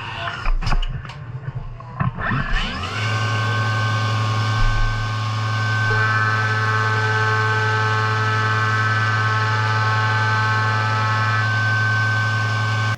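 CNC milling machine spindle spinning up after a few clicks, then running at steady speed with a high whine during a facing pass on pure iron bar stock. The tone gains extra pitches for several seconds in the middle.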